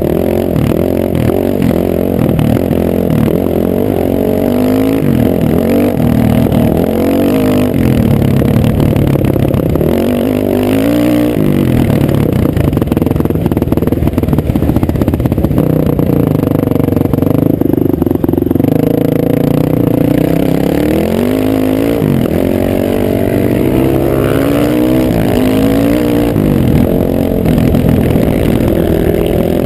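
Dirt bike engine heard close-up from the moving bike, revving up and dropping back over and over as the rider works the throttle and gears, with a couple of brief easings-off.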